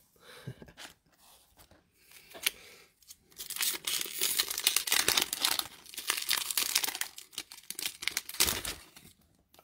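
Foil wrapper of a Magic: The Gathering Theros Beyond Death booster pack being torn open and crinkled by hand. A few light rustles come first, then about three seconds in a dense crackling starts and runs until shortly before the end.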